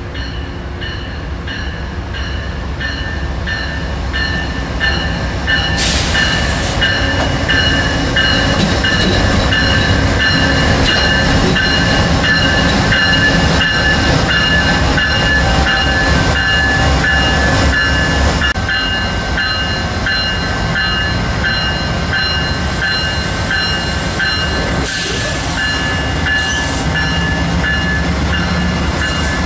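Two Amtrak P42DC diesel locomotives hauling Superliner passenger cars pass close by at speed: engine and wheel noise grow louder through the first third and stay loud as the locomotives and cars go by. A ringing repeats about twice a second over it.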